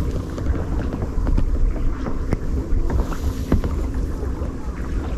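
Sea kayak paddling: the paddle dipping into calm water with small splashes and drips and water lapping at the hull. A steady low rumble of wind buffets the microphone underneath.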